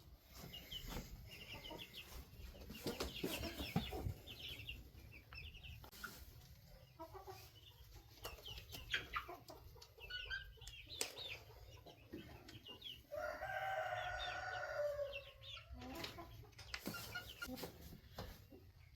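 Chickens clucking with high, short peeps from chicks throughout, and one long drawn-out call lasting about three seconds, a little over two-thirds of the way through.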